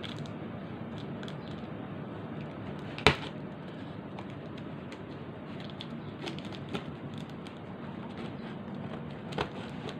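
Scissors and a cardboard parcel being handled while the box is opened: one sharp click about three seconds in, then a few fainter clicks and taps, over a steady low hum.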